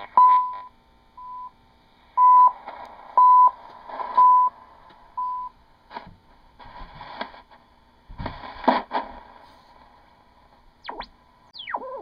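Shortwave time-signal ticks received on a one-tube regenerative receiver: short 1 kHz beeps about once a second over hiss, the CHU Canada time signal on 3.33 MHz. After about five seconds the beeps give way to static crackles and one loud crash, and near the end a few whistles slide up and down in pitch as the set is retuned.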